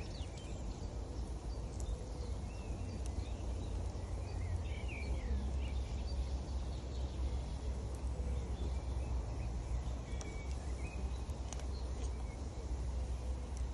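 Steady rush of a river, with birds chirping now and then and a few sharp crackles from a wood campfire.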